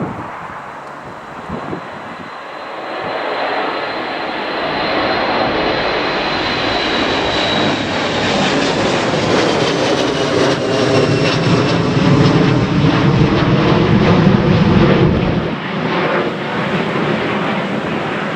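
Airliner passing close by, its engine noise building to a peak and then easing off, with a high whine that drops in pitch as it goes past. Strong wind buffets the microphone.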